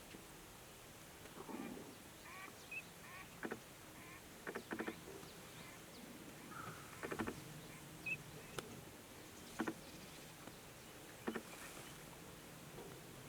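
Birds calling: short calls every second or two, with a few faint high chirps between them.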